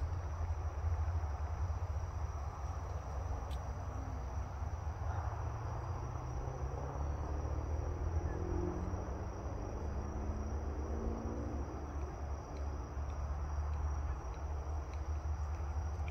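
Crickets chirping in a steady high trill, over a loud, steady low rumble, with faint whines rising in pitch around the middle.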